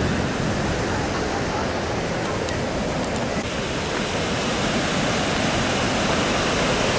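Water pouring over a low river weir: a steady, even rush.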